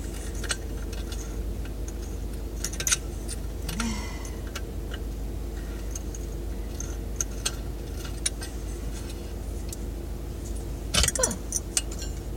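Light metal clicks and clinks from the brass light-kit parts of a ceiling fan being handled and unscrewed, with a louder flurry of clinks near the end. Under them runs the steady low hum of the idling car and its heater.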